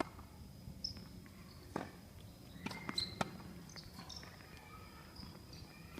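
A few scattered sharp knocks and taps, clustered about three seconds in, over a faint steady high-pitched tone.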